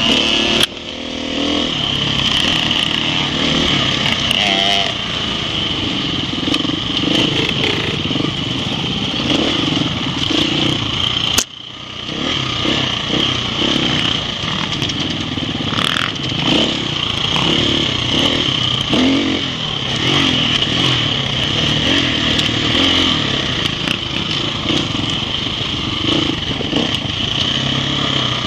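Enduro motorcycle being ridden off-road, its engine revving up and down continuously through the gears and throttle changes. There is a sharp click with a brief drop in sound about eleven seconds in.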